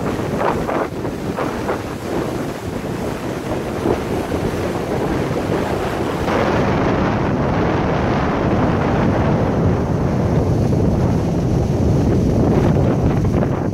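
Wind buffeting the microphone over surf breaking on a rocky shore; the wind noise grows heavier and deeper from about halfway through.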